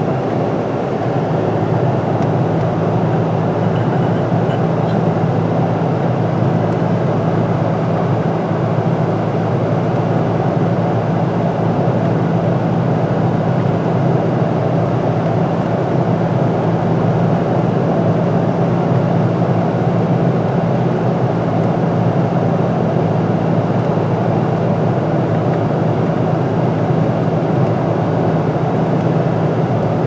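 Steady road and engine noise of a moving car, heard from inside the cabin: an even low rumble with tyre hiss, no changes.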